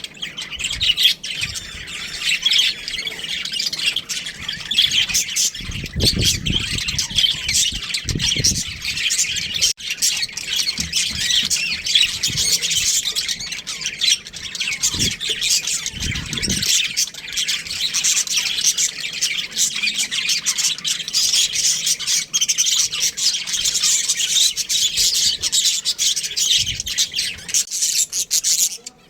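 Budgerigars chattering and chirping nonstop, a dense warble of many quick squawks and tweets, with a few low bumps partway through.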